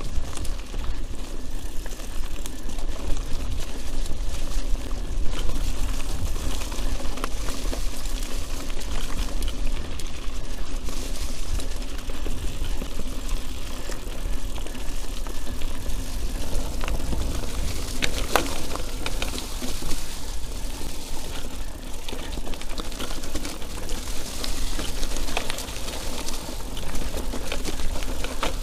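Mountain bike ridden on a wet, rooty forest trail, heard from an action camera on the bike or rider. The tyres roll over mud and roots, the bike rattles and clicks over bumps with a louder clatter about two-thirds of the way through, and wind rumbles on the microphone.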